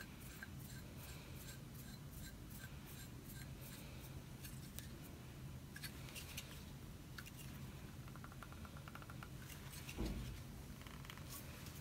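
Faint clicks and scrapes of plastic and metal blaster parts being handled and fitted together, with a quick run of small clicks about eight seconds in and a soft thud about ten seconds in.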